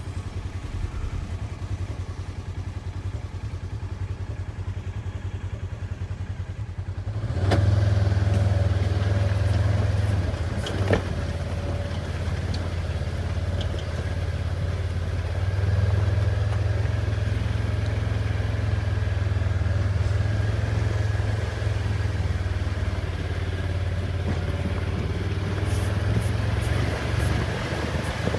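Small vehicle engine running at a low idle, then picking up and running louder as it moves off about seven seconds in.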